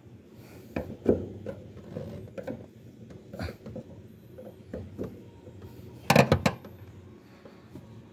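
Scattered clicks and knocks of hand work on a car's fuel pump connectors and hose lock clip, with a sharp cluster of clicks about six seconds in.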